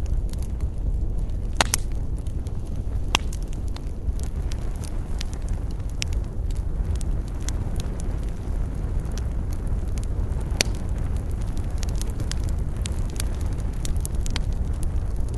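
Wood fire crackling: irregular sharp pops and snaps, a few louder ones standing out, over a steady low rumble.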